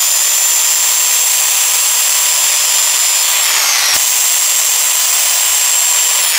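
SKIL circular saw running at full speed, trimming a thin strip off the end of a hardwood pallet board. Its high whine dips slightly in pitch about three and a half seconds in and again near the end.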